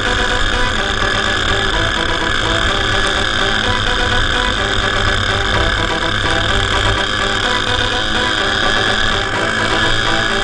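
Racing go-kart engines running at high revs, heard from a camera mounted on the kart, steady throughout with the engine of a second kart running alongside.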